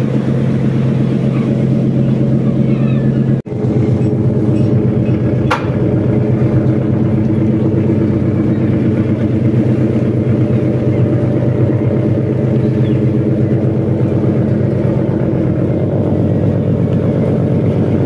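Fishing trawler's engine and deck machinery running with a loud, steady drone during the haul of a trawl full of capelin. The sound drops out briefly about three and a half seconds in, and a single sharp click follows a couple of seconds later.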